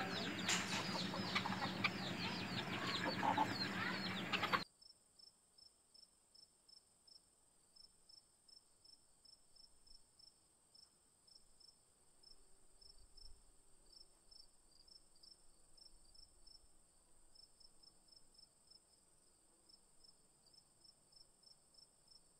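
Chickens clucking in a coop yard for the first few seconds, then the sound cuts off suddenly, leaving only faint, evenly repeating high cricket chirps.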